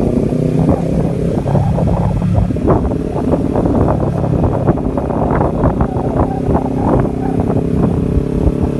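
A motor engine running steadily, with frequent short knocks and rattles over it.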